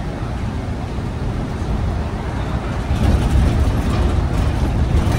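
Cabin noise of a New Flyer XN35 compressed-natural-gas bus under way: a steady low rumble from its Cummins Westport L9N engine and the tyres, with light rattles, growing louder about three seconds in.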